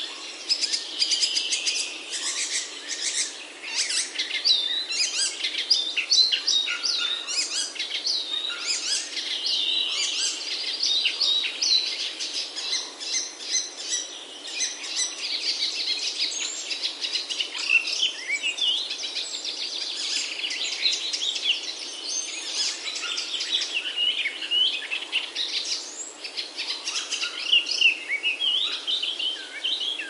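A dense chorus of small songbirds, many overlapping high chirps and quick rising and falling notes, running on without a break.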